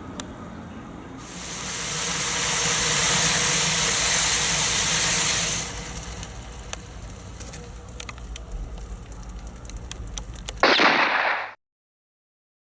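Lithium polymer battery failing in a destructive test: a loud hiss of venting gas for about four seconds, then scattered crackles and pops, then a short, loud burst before the sound cuts off suddenly.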